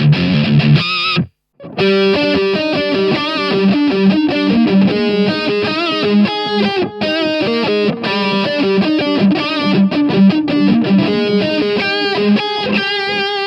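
Gibson SGJ electric guitar, its humbucking pickups played through an overdriven amp. Dense chords stop about a second in, and after a brief silence a fast riff of single notes follows.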